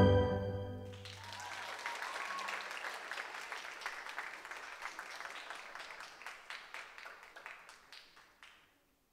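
The last chord of orchestral music dies away in the first second, then an audience applauds, the clapping thinning and fading out near the end.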